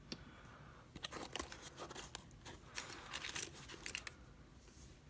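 Small metal locks and keys clicking and clinking as they are handled, set down on a rubber mat and rummaged for in a cardboard parcel, in scattered light clicks with the loudest clink about three and a half seconds in.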